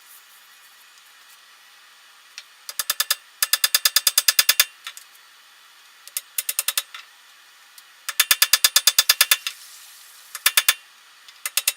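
Rapid mechanical clicking from a ratchet-type mechanism, about ten clicks a second, coming in several short bursts.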